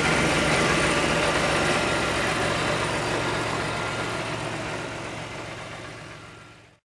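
1989 Chevrolet Cavalier Z24's 2.8-litre V6 idling steadily, fading out and stopping just before the end.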